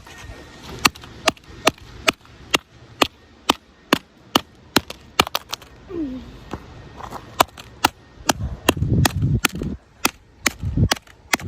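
Rapid hammer blows on an iPhone 7's dented aluminium body: sharp cracks about two to three a second, turning to duller, irregular knocks in the last few seconds.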